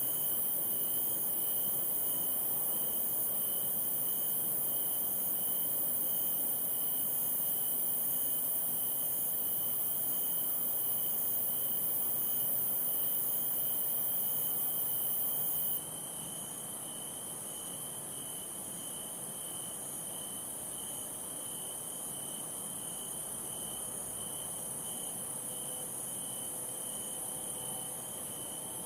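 Night chorus of field insects: a constant, very high shrill trill over a steadily pulsing chirp. About halfway through, the high trill drops suddenly in level.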